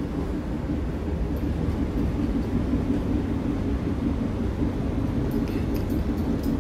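Steady running noise inside a moving Great Western Railway passenger train carriage: a low rumble with a constant hum, and a few faint light clicks near the end.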